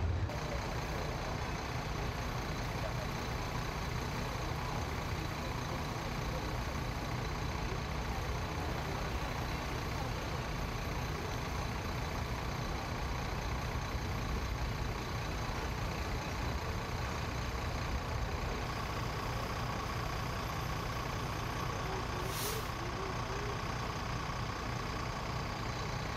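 Fire trucks' diesel engines running steadily at a fire scene, a continuous low rumble, with a short hiss near the end.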